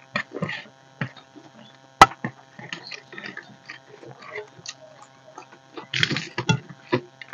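Close-up eating sounds: rice and curry being mixed and scooped by hand from steel plates, with chewing and scattered small clicks. A single sharp click about two seconds in, and a short crackly burst about six seconds in.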